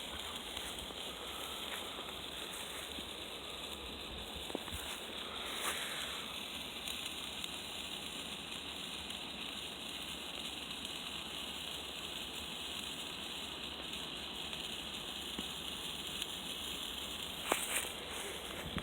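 A lit sparkler fizzing with a steady hiss. The hiss thickens about six seconds in and thins out near the end.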